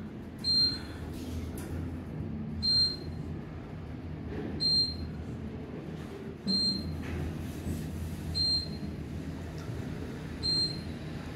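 Otis Series 2 elevator car riding up, a short high beep sounding about every two seconds as it passes each floor, over the steady low hum of the moving car.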